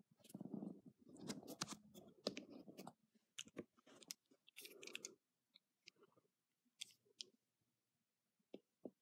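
Faint handling noise from an automatic stiletto switchblade being turned over in the hand: rustling and crackling for the first few seconds, then scattered small clicks and ticks of metal and plastic.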